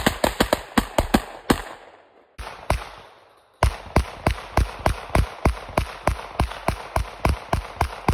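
Rapid gunfire from several firearms, handguns among them, shooting together at about four or five shots a second. The firing breaks off about a second and a half in, two single shots follow, and a long fast string starts again about three and a half seconds in.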